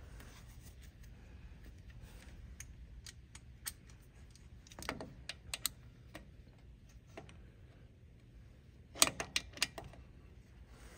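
Scattered light clicks and taps of a hand tool on metal as it is worked onto the wheel speed sensor's bolt, with a quick run of louder clicks about nine seconds in.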